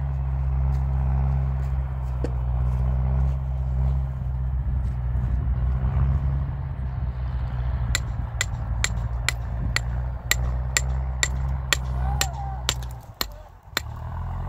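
Steady low mechanical drone. About halfway through, sharp regular clicks start at roughly two a second, and the drone drops out briefly near the end.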